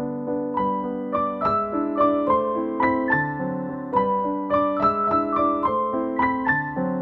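Background music: a gentle piano melody of quick single notes over held lower notes, the melody coming in about half a second in.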